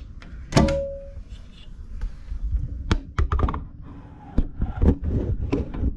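Handling noise close to the microphone: irregular taps, knocks and clicks, with a short squeak about half a second in.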